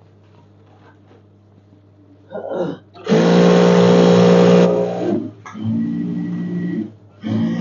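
Sewing machine stitching a long seam in bursts. It is quiet for the first two seconds, gives a short run, then runs for about two seconds, stops, and runs again at a lower, softer pitch. Each burst starts and stops sharply as the treadle is pressed and released.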